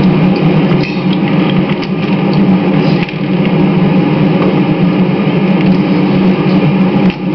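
Steady road and engine noise of a car driving in city traffic, heard from inside the car.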